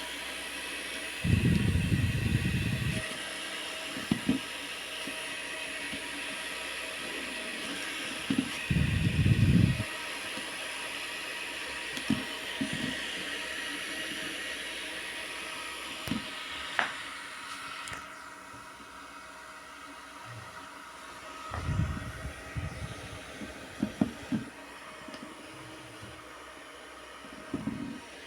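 Small white 5 W portable electric fan running with a steady whir and a faint motor whine. A few short low rumbles break in now and then. After a couple of clicks a little past halfway, the whir settles to a quieter level.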